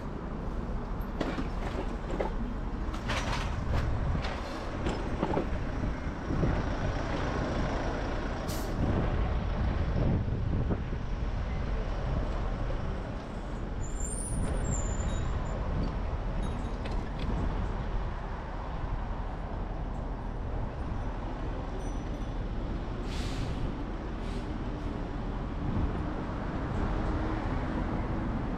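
Road traffic at a busy city intersection: a steady rumble of cars and buses passing, broken by a few short, sharp hisses, the clearest about a third of the way in and again near the end, and a brief high chirp about halfway through.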